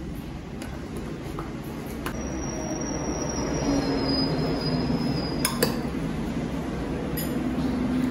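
A bus passing by: a low rumble that swells over several seconds, with a thin high squeal from about two seconds in until about five seconds. A metal spoon clinks against the bowl a few times as rice is stirred.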